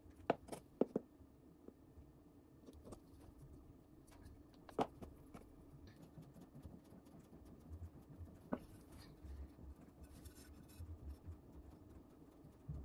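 Quiet handling of a small glue tube and a terracotta saucer on a plywood board. A quick cluster of sharp clicks comes in the first second, a louder tap near five seconds and another a few seconds later, with faint scratching between as glue is dabbed onto a chip in the saucer.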